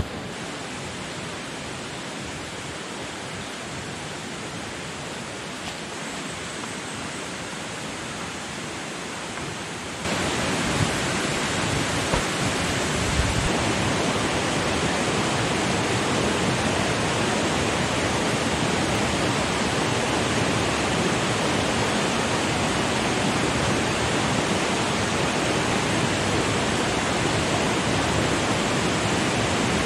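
Rushing river water, a steady wash of noise that jumps clearly louder about ten seconds in and then holds steady.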